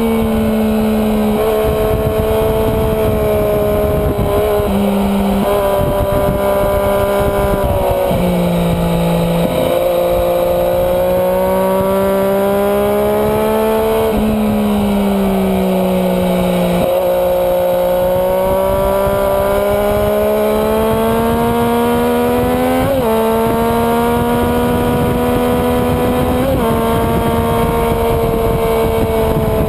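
Sport motorcycle engine running hard on a racetrack, heard from an onboard camera with heavy wind noise. The engine note climbs and falls over several seconds at a time, with a few sudden jumps in pitch.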